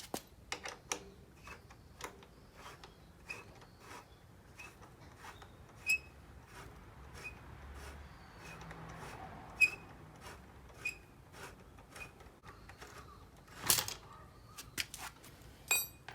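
Hand tools and parts being handled: scattered clicks and light metallic clinks, some ringing briefly, with a louder rustling scrape near the end.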